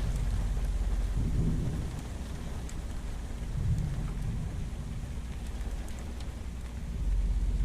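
Rain falling in a thunderstorm, with a low rumble of thunder that swells twice.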